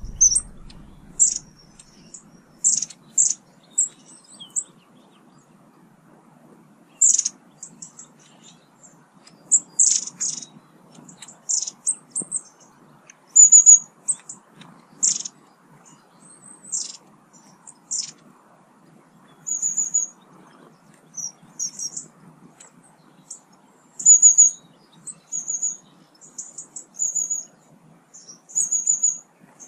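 Long-tailed tits calling: short, very high, thin chirps and brief trills at irregular intervals.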